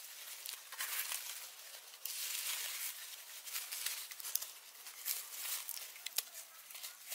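Rustling and crackling of leaves and plant material being handled and cut, with many short sharp snaps and a denser stretch of rustling about two seconds in.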